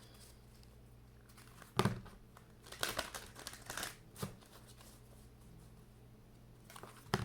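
Tarot cards being handled: a sharp card tap about two seconds in, a brief cluster of rustles a second later, and single taps near the middle and at the end, with quiet stretches between over a low steady hum.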